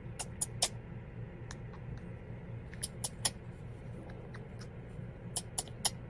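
Green-cheeked conure making short, sharp high clicks in three quick clusters of three or four, over a steady low hum.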